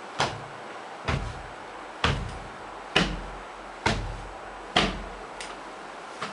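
A run of six heavy bangs about a second apart, each with a short low rumble after it, like blows on a door, then two lighter knocks near the end.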